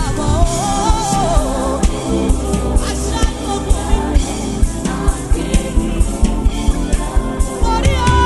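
Gospel praise song with a steady drum beat and a sung vocal line near the start, the voice then giving way to the instruments.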